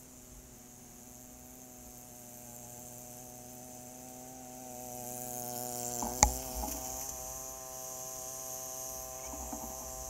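Snowblower's small engine running steadily, getting louder as the machine comes closer, with one sharp click about six seconds in.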